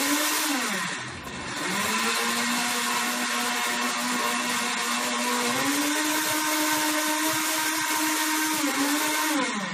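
Countertop blender blending aloe vera gel with water. The motor gives a short run first, then runs steadily, its pitch stepping up a little about halfway through, and winds down near the end.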